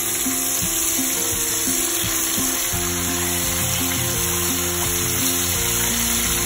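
Marinated tilapia and curry leaves shallow-frying in hot coconut oil in a pan, a steady sizzle.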